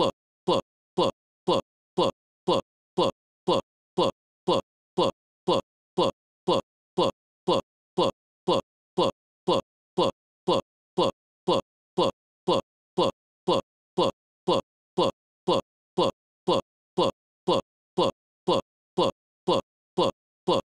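A short snippet of the soundtrack stuck in a loop, repeating about twice a second: each repeat is a brief blip that falls in pitch, with silence between. It is a digital playback glitch.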